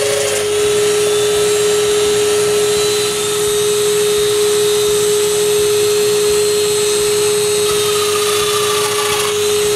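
Festool Domino joiner running steadily with a constant whine as it cuts a series of mortises.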